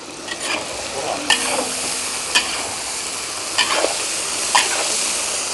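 Potatoes and vegetables sizzling in a large cast-iron cauldron while a long-handled metal spoon stirs them, scraping against the pot several times. The sizzle is quieter at first and grows louder about a second in.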